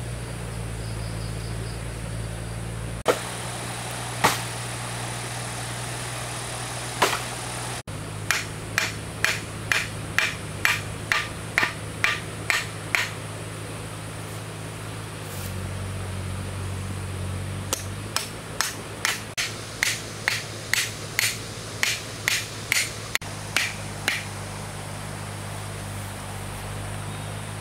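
Two runs of sharp knocks, each about ten strikes at roughly two a second, over a steady low hum.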